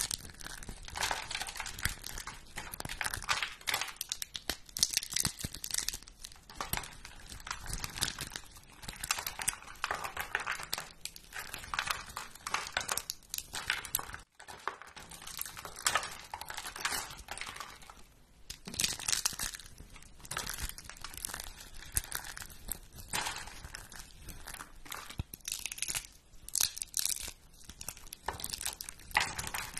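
Thin, brittle plastic-like sheets crunched and crinkled in the hands, along with rolled coils of the same material being squeezed. It makes a dense, irregular crackle of small snaps and tearing sounds, with a brief gap about halfway through.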